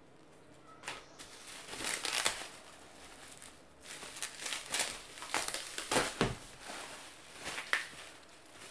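Plastic bubble wrap crinkling and crackling in irregular bursts as it is pulled off and unwrapped from a stack of hardcover books.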